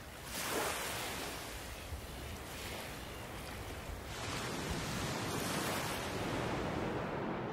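Shallow surf washing up a sandy beach: a steady rush of small waves that swells about half a second in and again from about four seconds in.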